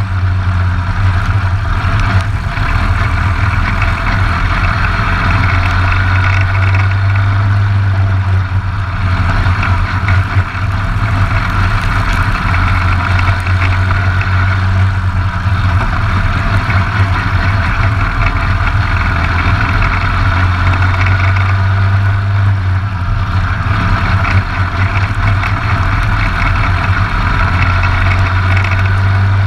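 Briggs & Stratton LO206 single-cylinder four-stroke kart engine running hard under race load, heard from the kart's front fairing. A loud, steady drone whose pitch dips and recovers slightly every so often.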